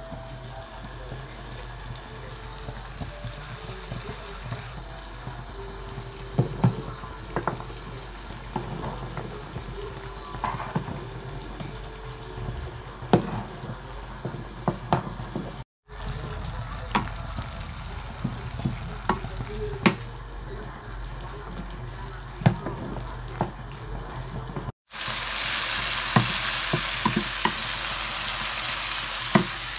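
Scattered sharp clinks of a utensil against a cooking pan over a steady low hum. About 25 seconds in, a much louder steady sizzle starts: green spice paste frying in a pan while it is stirred with a wooden spatula.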